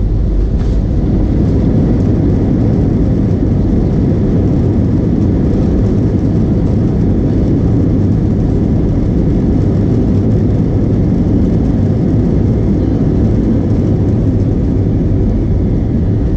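Steady low rumble inside the cabin of an Airbus A321 from its jet engines and wheels as it rolls along the runway after touchdown.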